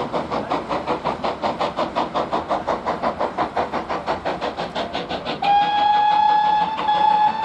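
Steam locomotive approaching under power, its exhaust beating in a rapid, even rhythm. About five seconds in it sounds its steam whistle: one long, steady blast, a short break, then a second blast.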